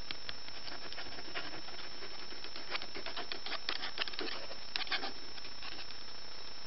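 A pen scratching on sketchbook paper in quick, short strokes, busiest in the middle, over a steady hiss with a thin high whine.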